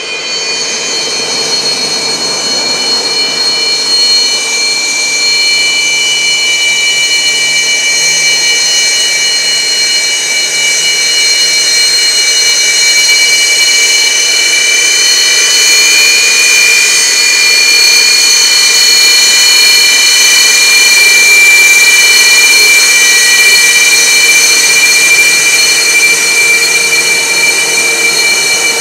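Sukhoi Su-27P's twin AL-31F turbofans running with a steady high-pitched whine of several piercing tones over a jet rush, growing louder in the first few seconds and then holding.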